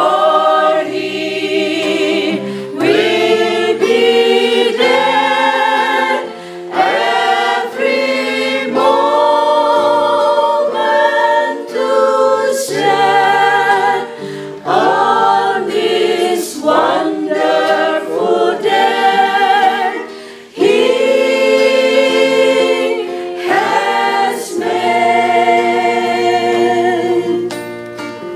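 Small mixed choir of women and men singing a gospel song in parts, phrase after phrase, accompanied by an acoustic guitar.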